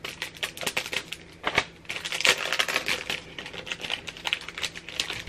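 A wrapped paper planner insert being unwrapped by hand: a rapid run of crinkles and small clicks from the wrapping, busiest about two seconds in.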